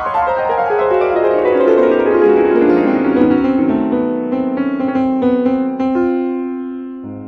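Steinway grand piano played solo: a fast cascade of notes runs down from the high register to the low, then settles into held notes and chords that slowly fade, with a fresh low note struck near the end.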